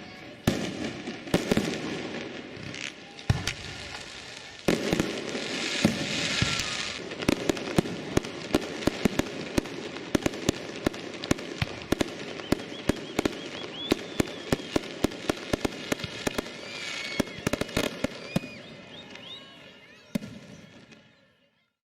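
Fireworks going off: several loud bangs in the first few seconds, then a dense, rapid crackle of many sharp pops that thins out and fades away near the end.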